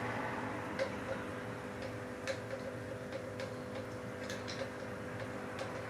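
Faint, irregular clicks and ticks, a few a second at most, over a steady electrical hum.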